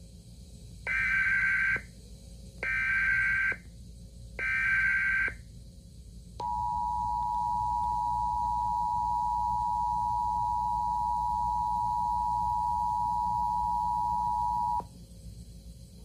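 Emergency Alert System broadcast: three short bursts of screechy digital SAME header data tones, then the steady two-tone EAS attention signal held for about eight seconds before it cuts off.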